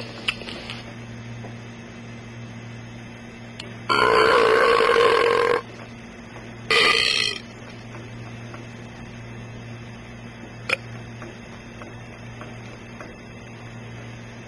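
A recorded burp played through a Big Mouth Billy Bass animatronic fish's small speaker: one long burp about four seconds in, then a short second one a second later. A steady low hum runs underneath, and a single click comes near the end.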